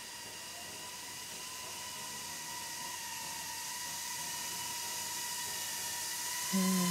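GEPRC Cinelog25 cinewhoop FPV drone in flight: its motors and ducted propellers make a steady high whine over a rushing hiss, growing slowly louder. A man's voice starts near the end.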